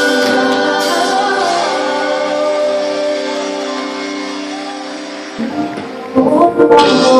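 Live gospel worship music with singing and a band: sustained chords fade away over the first few seconds, then the music comes back louder about six seconds in.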